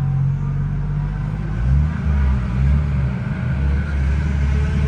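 Toyota Verossa JZX110's turbocharged 1JZ straight-six running at low revs, heard from inside the cabin while the car rolls slowly. Its low drone shifts in pitch a couple of times.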